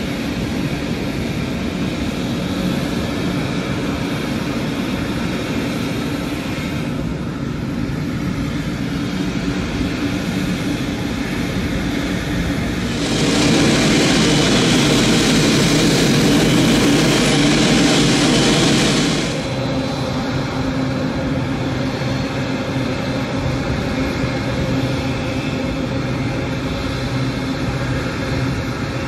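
Boeing 777-300ER's GE90 jet engines running at ground idle, a steady hum with a whine. It grows louder and fuller for about six seconds in the middle.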